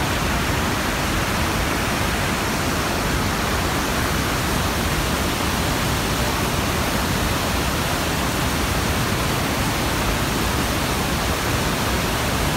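Steady, even rush of water from Iguaçu Falls: a wide curtain of waterfalls and the river rapids below them.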